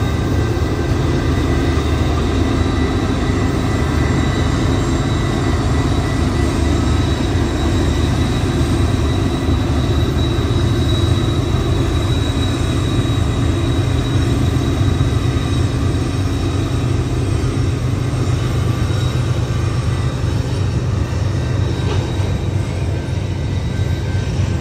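Freight train rolling past: a steady, loud rumble of wheels and cars on the rails, with a faint steady high whine over it, easing slightly near the end.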